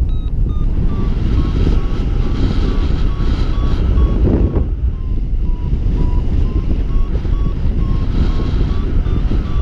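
Wind rushing over the microphone in flight, with a stronger gust about four seconds in, over a paragliding variometer beeping rapidly at about three short beeps a second. The beeping signals that the glider is climbing in lift; its pitch dips slightly in the middle and rises again toward the end.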